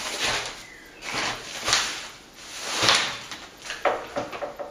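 A ceiling panel lift being handled and adjusted: four short scraping, sliding noises about a second apart.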